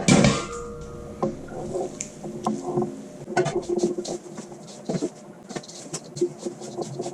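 Wet chopped-vegetable bird chop being stirred and mixed in a container, with irregular clicks, scrapes and small knocks.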